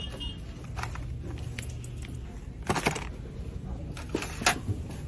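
Plastic toiletry bottles and a deodorant stick clacking and knocking as they are handled, set into a plastic shopping cart and pulled from a store shelf. Scattered sharp clicks, loudest in a cluster about three seconds in and twice more a little before the end, over a low steady hum.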